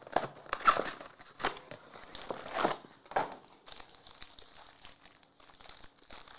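Foil trading-card pack wrappers crinkling and tearing as the packs are handled and ripped open, in irregular bursts that are louder in the first three seconds and softer after.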